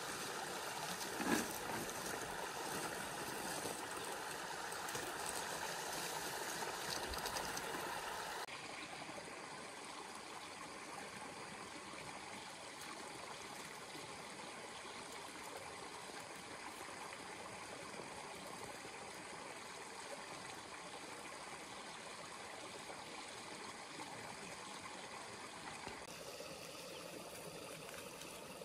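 Steady outdoor background noise, an even rushing hiss with no distinct events, a little louder and brighter for the first eight seconds or so and then level.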